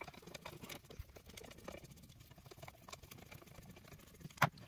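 Faint small clicks and scrapes of a screwdriver turning and working the screws that hold a power-fold mirror's motor module, with one sharper click near the end.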